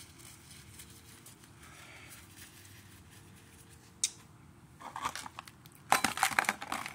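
Crinkling and rustling of paper or plastic handled by hand, close by: a single sharp tap about four seconds in, then quick crackles that grow loudest near the end.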